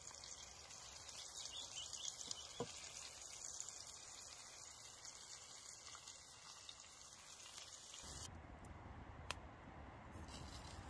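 Faint sizzle of fish frying in a pan over a campfire, a steady hiss with small crackles. A little after 8 seconds the sizzle cuts off abruptly and a low rumble remains, with one sharp click about a second later.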